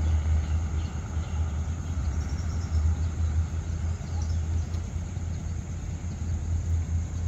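Low, steady rumble of a State Railway of Thailand train moving away along the track just after passing.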